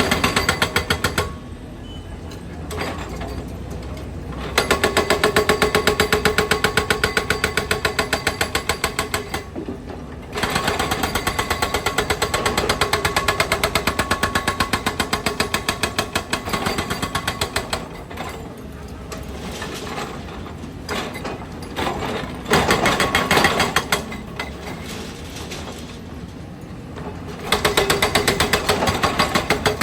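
Road breaker hammering in bursts of several seconds: rapid, evenly repeated strokes that start and stop several times, the longest runs lasting five to seven seconds, with lower steady machine noise in the pauses.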